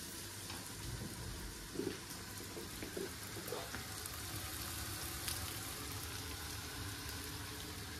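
Rice toasting in butter in a pot for pilaf: a steady sizzle with a few light clicks, the stage before the water goes in.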